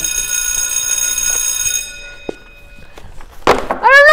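A ringing alarm-bell tone sounds for about two seconds, then dies away. Near the end a person gives a loud cry that rises and falls in pitch.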